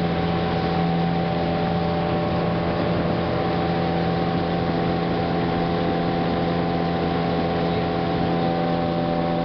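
Motorboat engine running steadily at a constant speed, an even drone with no changes in pitch.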